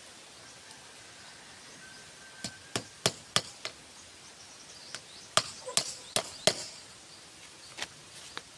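Sharp, irregular tool blows from work on a bamboo fence: a run of five knocks about a third of a second apart, then a quicker cluster of about six a couple of seconds later, and two lone knocks near the end.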